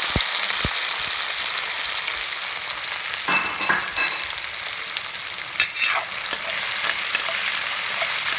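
Green chillies, curry leaves, ginger and garlic sizzling steadily in hot coconut oil in an iron wok (cheenachatti) as they are sautéed. A spatula stirs and scrapes the pan a few times around the middle.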